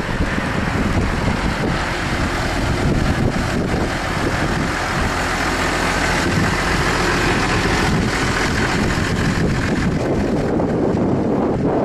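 Case IH Puma 155 tractor's 6.75-litre six-cylinder diesel engine idling steadily, with wind on the microphone.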